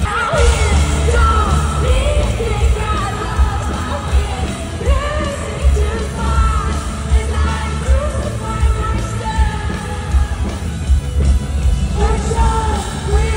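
Live pop concert music heard from within the crowd: a singer's voice over a heavy, pulsing bass beat, with fans yelling along.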